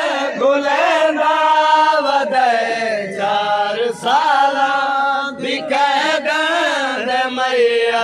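Male voices chanting a noha, a Shia Muharram mourning lament, in long sliding melodic lines without a break.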